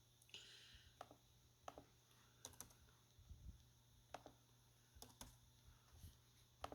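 Faint, scattered clicks of computer keyboard keys being pressed, some in quick pairs, roughly one a second, over near silence.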